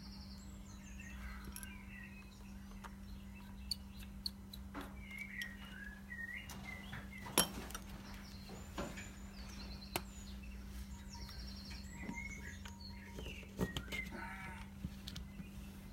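Farmyard background of birds chirping and a farm animal calling near the end, over a steady low hum. Scattered sharp clicks and taps come from small tools working on the phone.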